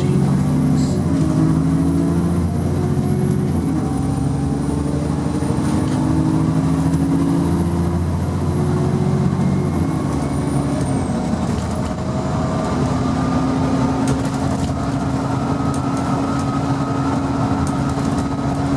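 Alexander Dennis Enviro400 double-decker bus engine pulling away, its pitch climbing slowly and dropping twice as the gearbox changes up, then running steadily at cruising speed. A faint high whine runs above it.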